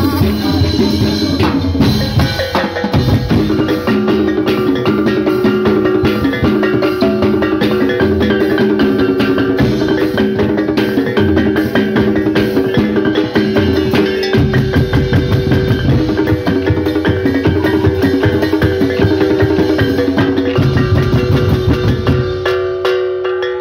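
Kulintang gong-chime ensemble playing: a row of small bossed bronze-coloured gongs is struck with wooden sticks in fast, ringing melodic patterns, over steady drum beating and cymbals. The low drum beats thin out briefly near the end.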